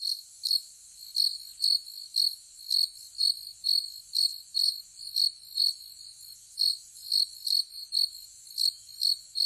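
Cricket chirping sound effect: a steady, high chirp repeating about twice a second. It is the comic "crickets" that marks an awkward silence when nobody has an answer.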